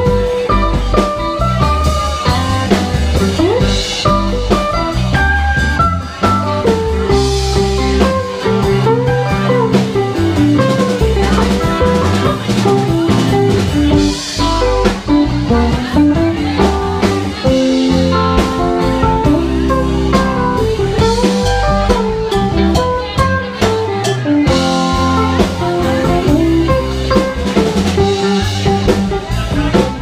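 Live band playing an instrumental passage: electric guitars over a drum kit, with a lead line whose notes glide up and down in pitch.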